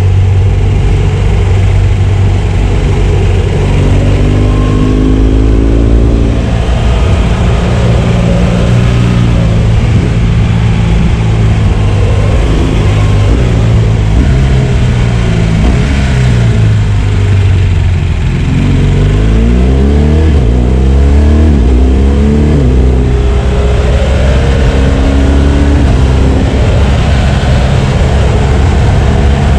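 BMW R1200 GS boxer-twin engine under way: the revs climb through the gears early on, drop away around the middle as the bike slows, then pull up again under acceleration.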